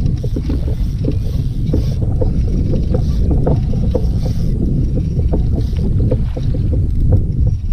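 Wind buffeting the microphone as a low rumble, with irregular small splashes and knocks of water lapping against a kayak hull.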